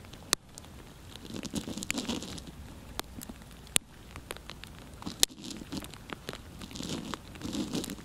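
Close rustling and crinkling, in short spells about a second and a half in, around five seconds in and near the end, with a handful of sharp clicks between them.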